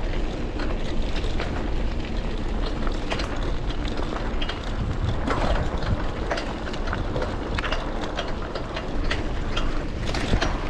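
Bicycle ride heard from the rider's camera: wind rushing over the microphone with a steady low rumble, and frequent irregular clicks and rattles from the bike jolting over a rough surface.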